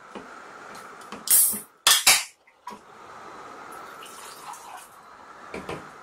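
Tall aluminium can of Arizona Fruit Punch cracked open: a short loud hiss and the sharp snap of the pull tab about a second and a half in. The drink is then poured into a glass, and the can knocks down on the table near the end.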